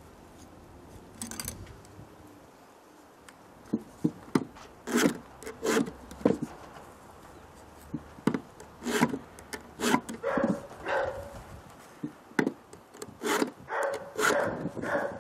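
A round chainsaw file drawn by hand across the cutters of a chainsaw chain to sharpen it. Short rasping strokes come mostly in pairs, two per tooth, with brief pauses as the file moves to the next cutter.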